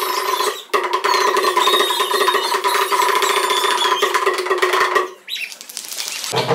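Audience cheering and applauding, with shrill whistles and calls over the clapping; the noise drops away briefly after about five seconds.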